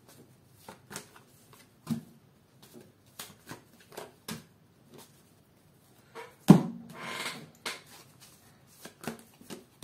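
Tarot cards handled and dealt onto a wooden table: a scatter of light taps and clicks as cards and the deck are set down. About six and a half seconds in there is a louder knock, then about a second of card rustling.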